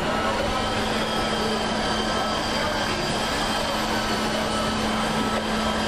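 Steady drone of a cruise ship's ventilation and machinery: a constant low hum with an even rushing noise over it, unchanging throughout.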